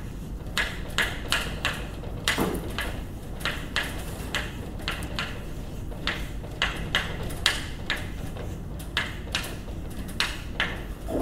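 Chalk tapping and scraping on a blackboard as a formula is written out, in many short, irregular strokes.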